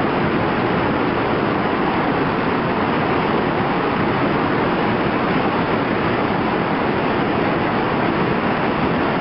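Iguazu Falls, a huge volume of water pouring down: a loud, steady, unbroken rush.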